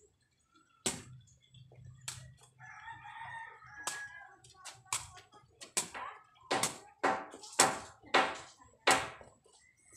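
A sepak takraw ball being kicked back and forth, a series of sharp knocks that come faster and louder in the second half. A rooster crows in the background about three seconds in.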